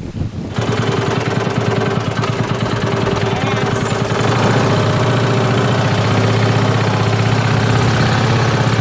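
Engine of a small wooden motor boat running steadily with a fast, rattling beat, setting in abruptly about half a second in and getting louder about four seconds in.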